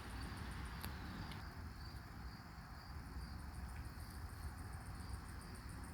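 Faint, steady insect chirping: a rapid, evenly pulsing trill high in pitch, over low outdoor background noise.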